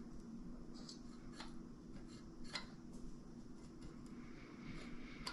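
A few faint, light clicks of small metal tools and engine parts being handled, over a steady low hum.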